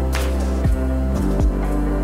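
Background music: held chords over a low bass, with a cymbal-like wash at the start.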